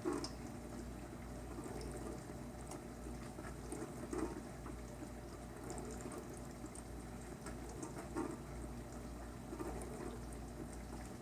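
KitchenAid KDTM384ESS dishwasher running its wash cycle: a steady low hum with water spraying and sloshing against the inside walls. It is quiet, with small surges every couple of seconds as the spray arms throw water; with a light load of glassware the water hits the tub walls.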